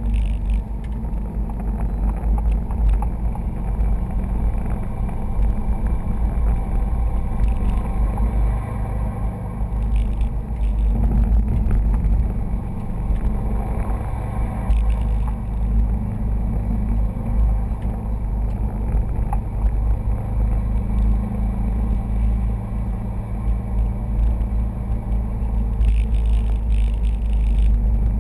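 Cabin noise inside a 2011 Subaru STI driving at about 40 mph with the windows closed and the A/C running: a steady low rumble of its turbocharged flat-four engine and road noise, with no sudden events.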